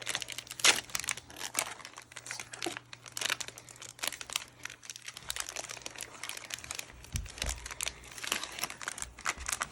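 Wrapper of a Panini Playoff football card pack crinkling and tearing as it is opened by hand, with dense irregular crackles throughout. A dull low bump comes about seven seconds in.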